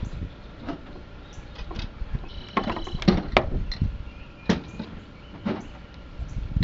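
Irregular clicks and knocks of small plastic and metal parts being handled as a motor is fitted into a radio-controlled truck's chassis, bunched a little before the middle, over a low rumble.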